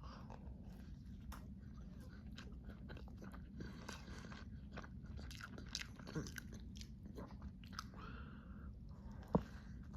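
Close-up chewing and biting of a donut: soft, wet mouth noises with small crackles, and one sharper click near the end.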